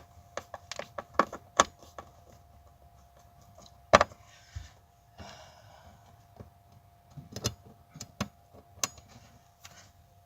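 Scattered clicks and knocks of hand tools and metal parts being handled as a car's fuel pump access is screwed back together, with one sharp knock about four seconds in followed by a short scraping rustle. A faint steady whine runs underneath.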